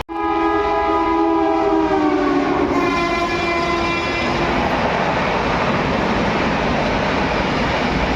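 Indian Railways locomotive horn sounding a long blast that dips slightly in pitch as the train passes, with a second horn note joining about three seconds in. After about four and a half seconds the horn stops, leaving the steady rumble and wheel clatter of the passing train.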